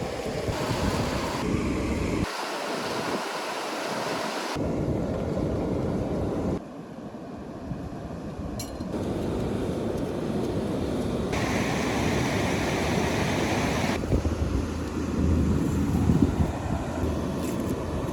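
Steady rushing noise of a river with wind on the microphone. The sound changes abruptly every two to three seconds as short outdoor clips are cut together.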